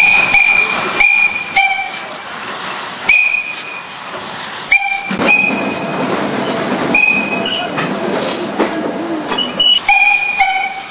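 Italian-built Mallet steam locomotive's whistle giving a string of short, sharp blasts, some in quick pairs, over a steady hiss of steam.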